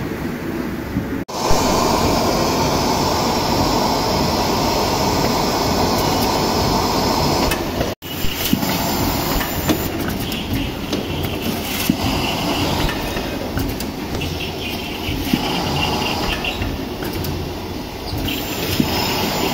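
Automatic sugar-cube boxing machine running: a steady mechanical din with rattling and frequent light clicks as cubes are pressed into cartons. The noise breaks off abruptly twice; the part before the second break has a louder, hissing whir.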